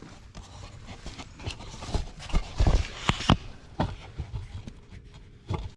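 A run of irregular knocks and clunks from tools and parts being handled, loudest in the middle, ending in an abrupt cut.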